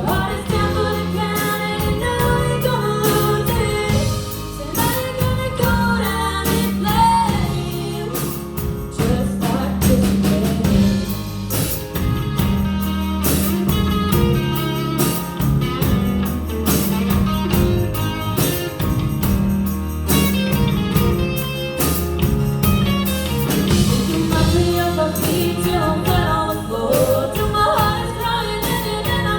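A song sung by a female singer over a band, with steady bass notes, guitar and regular drum hits.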